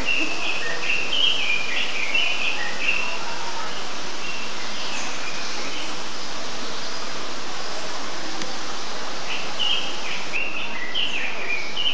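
Birds chirping and twittering in quick runs of short notes, busy in the first few seconds, sparser in the middle and busy again near the end, over a steady hiss.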